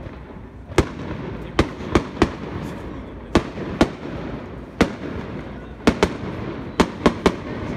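Fireworks display: aerial shells bursting overhead in a string of about a dozen sharp bangs at irregular intervals, over a steady background noise.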